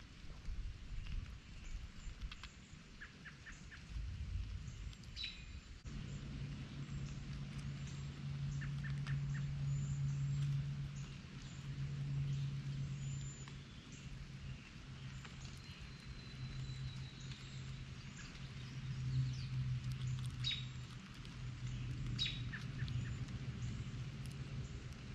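Scattered short bird chirps and calls, one a long thin whistle about two-thirds of the way through, over a steady low hum that starts about six seconds in.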